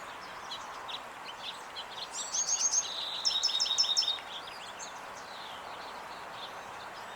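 A songbird sings a quick run of repeated high, down-slurred notes about two seconds in, lasting roughly two seconds, with scattered fainter chirps around it over a steady background hum.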